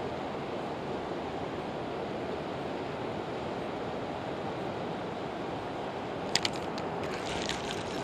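High river water rushing steadily, with a few sharp clicks starting about six seconds in.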